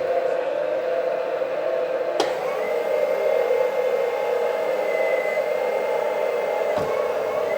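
LESU 9150 front shovel RC hydraulic excavator running, with its hydraulic pumps and sound system giving a steady whirring hum. A click comes about two seconds in, then a thin high whine holds for about four seconds and stops with a low thump near the end.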